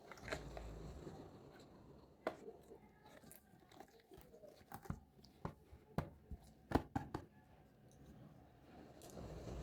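Small plastic toy play-set pieces and their packaging being handled: a rustle of packaging at the start, then scattered light clicks and taps of plastic parts.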